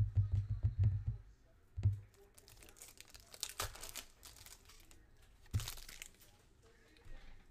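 Foil trading-card pack being torn open and crinkled while the cards are pulled out, in two crackly spells. A rapid low pulsing, about six a second, fades out about a second in.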